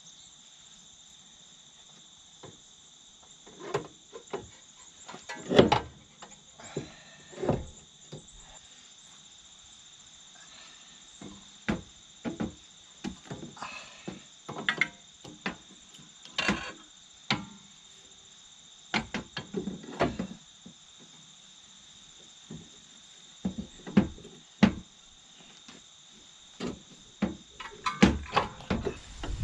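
Irregular clinks, knocks and thuds of hand tools and metal car parts being handled during front suspension and axle work, with a dense run of clatter near the end, over a steady faint high hiss.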